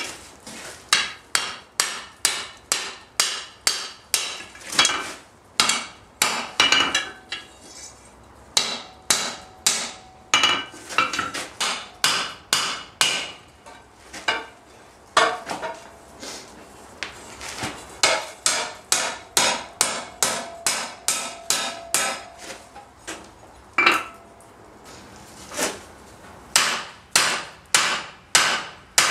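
Blacksmith's hand hammer striking red-hot iron bar stock on an anvil while forging a strap hinge, in runs of steady blows about two a second with a few short pauses. Some blows leave a brief ring.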